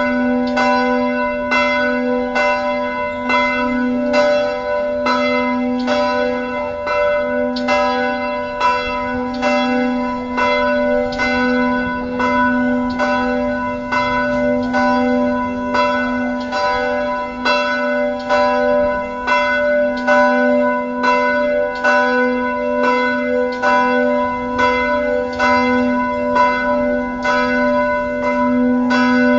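Church bells ringing in a steady, even peal of about two strokes a second, each stroke ringing on over a continuous low hum.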